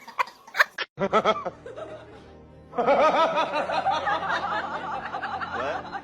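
Short bursts of laughter that cut off suddenly about a second in. Then, from about three seconds in, music with wavering, warbling tones.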